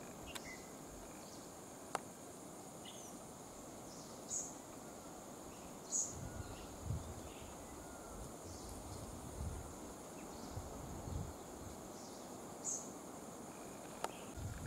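Faint outdoor ambience: a steady high-pitched insect trill, with a few short bird chirps scattered through and some soft low rumbles in the middle.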